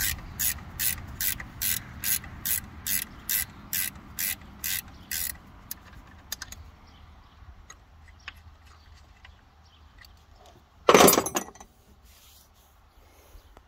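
Socket ratchet wrench clicking in a steady back-and-forth rhythm, about two and a half strokes a second, as it works a bolt on the power steering pump mounting of a 1964 Chrysler engine; the clicking stops after about five seconds. A brief loud clatter follows about eleven seconds in.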